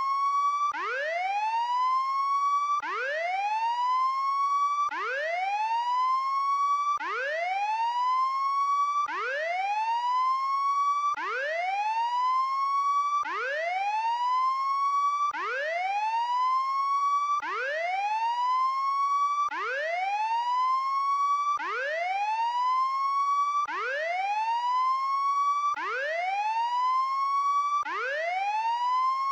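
Electronic prison-break alarm signalling an inmate escape: a whooping tone that sweeps up and levels off, then cuts off and starts again about every two seconds, over and over.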